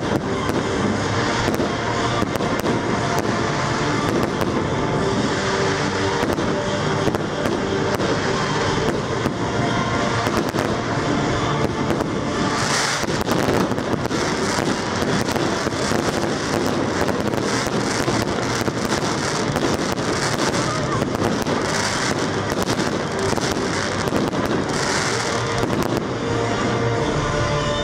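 Fireworks display: aerial shells bursting and crackling in quick succession over accompanying music with sustained tones. Heavier crackling comes about halfway through and again near the end.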